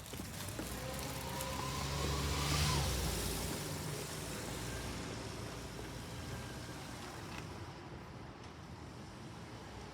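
A vehicle passing close by: its sound swells to a peak about three seconds in and then fades away. A whine rises in pitch just before the peak.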